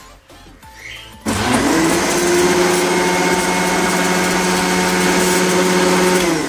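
Electric countertop blender switched on about a second in, its motor quickly spinning up to a steady, loud whine as it blends a milk-and-fruit smoothie. Near the end it is switched off and its pitch falls away as it winds down.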